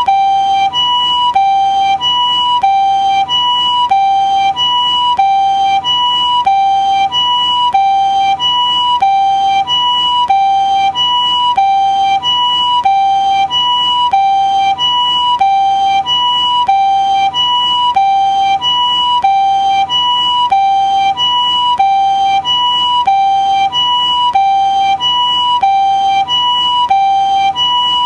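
Japanese ambulance two-tone siren sounding its high-low "pee-poh" call, alternating evenly between a higher and a lower pitch about every two-thirds of a second, steady in pitch and loudness.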